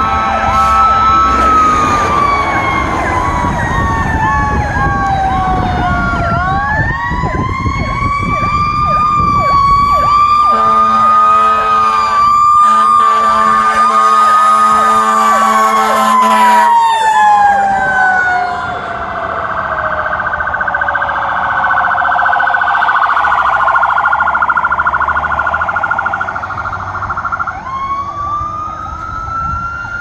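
Fire truck sirens on a code 3 response: a siren winds slowly down, climbs back up, holds and winds down again, with a fast warbling siren running over it. A low horn blasts for several seconds midway, broken once, and another siren starts rising near the end.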